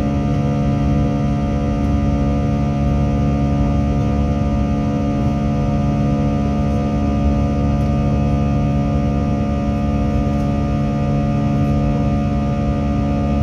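Airliner cabin noise during the climb after takeoff: the jet engines and airflow make a steady, loud drone with several steady whining tones over a low rumble.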